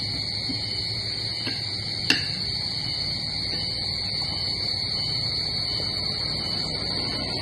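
A steady high-pitched drone over a low hum, with one sharp clink of a spoon against a plate about two seconds in.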